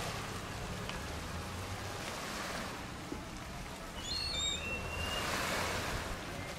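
Shoreline ambience: a steady hiss of small waves washing on the beach with a low wind rumble on the microphone, and a bird's brief chirping call about four seconds in.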